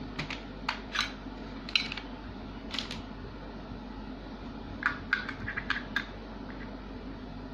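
Scattered light clicks and taps from handling a plastic Baofeng BF-T3 walkie-talkie, with a quick run of clicks about five to six seconds in, over a steady low hum.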